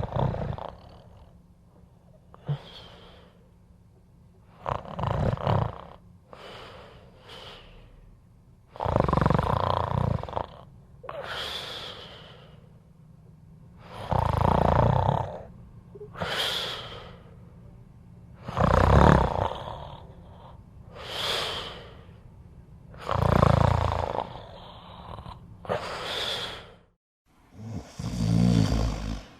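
A person snoring in a steady rhythm: a loud, low snore about every four and a half seconds, each followed by a quieter, breathy hiss of breath.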